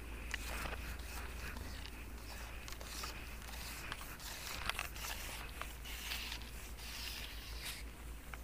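A telescopic fishing pole being extended by hand: scattered clicks, scrapes and crackles as the sections are pulled out.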